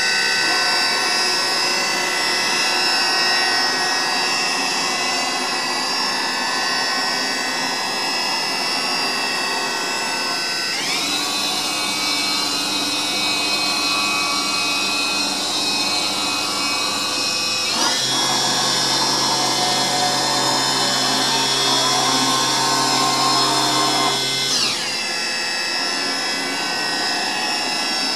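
Spindle of a Deckel Maho DMC 60 U machining centre running with no cut: a steady, many-toned whine. It steps up in pitch about eleven seconds in, steps up again about eighteen seconds in, and drops back near the end.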